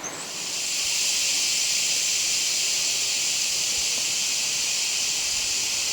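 Cicadas calling in a dense chorus: a continuous high, hissing drone that swells over the first second and then holds steady.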